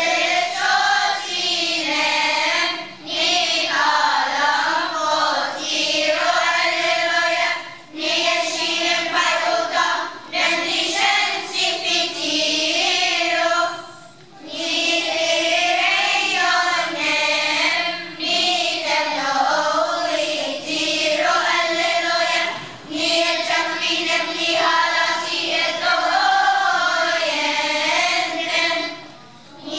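Children's choir singing, in phrases of a few seconds each with short breaks for breath between them.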